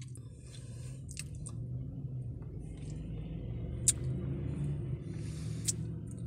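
Close-up eating sounds of ice cream being taken off a spoon and tasted, with a few sharp clicks and wet mouth noises, over a steady low hum.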